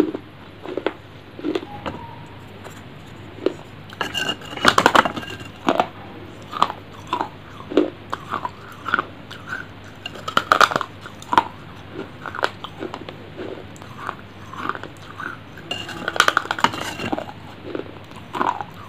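Close-miked biting and chewing of pieces of baked terracotta clay: a string of sharp crunches, with denser bursts of crunching a few times.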